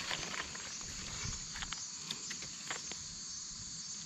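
Insects chirring steadily, with a few short, light crackles in leaf litter.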